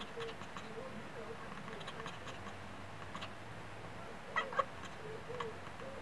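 Wood pigeon cooing in a run of soft, low, rounded coos, with a tabby cat chattering its teeth at it in faint quick clicks. The loudest sounds are two sharp chirps from the cat a little past the middle.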